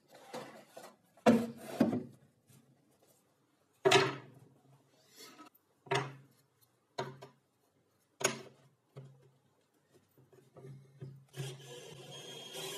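Wooden pieces knocked and set down on a wooden bench top: a series of separate sharp knocks. Near the end a cordless drill starts and runs steadily with a thin high whine.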